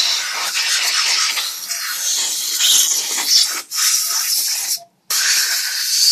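Compressed air hissing steadily from a dental air syringe, blown over a dog's teeth to dry off leftover fluoride foam. The hiss dips briefly about three and a half seconds in, stops for a moment just before five seconds, then starts again.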